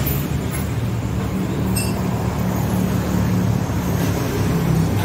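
Steady low hum of motor vehicle engines running, with traffic noise behind it and a couple of faint ticks.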